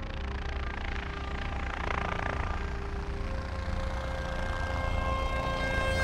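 Cinematic intro music and sound design: a low pulsing drone under held synth tones, with a swelling whoosh about two seconds in, growing louder toward the end.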